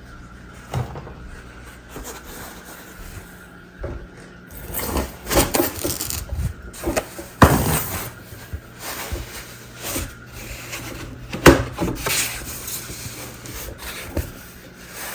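Plastic parts and foam padding of a life-size animatronic being handled and fitted together: irregular rubbing, scraping and rustling, with a few sharp knocks.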